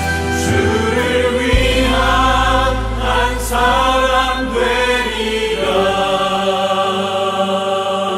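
Background music: a choir singing a worship song, with a low bass note that fades out about two-thirds of the way through.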